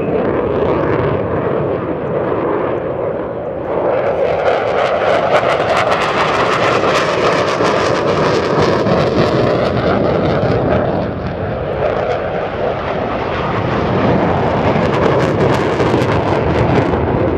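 Saab JAS 39 Gripen C fighter's single Volvo RM12 jet engine running as the jet flies a display pass. The noise grows louder and brighter about four seconds in, with a crackling rasp through the middle and again near the end.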